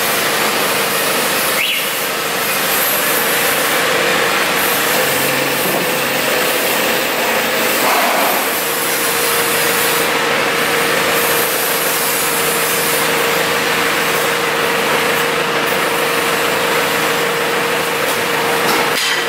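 An engine running steadily at a constant speed, with an even hum held through it.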